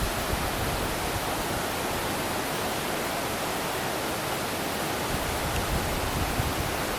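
Steady rush of falling water from the Ginga and Ryusei waterfalls, an even roar with no breaks.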